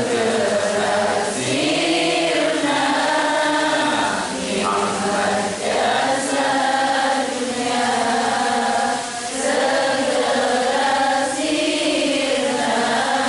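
Unaccompanied devotional Islamic chanting in a melismatic sung style: long held notes that waver and bend in pitch, with short breaks between phrases.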